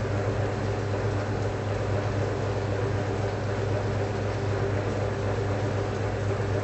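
Steady mechanical hum of pipe-inspection machinery running, with a strong low drone and no change through the stretch.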